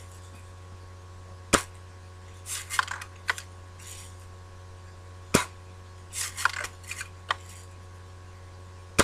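Daisy lever-action BB gun fired three times, each a sharp crack, with the lever worked in a quick series of rasping clicks to cock it between shots.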